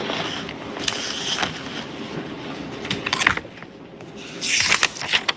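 Steady courtroom room noise, with a few sharp knocks about three seconds in and a short rustle near the end.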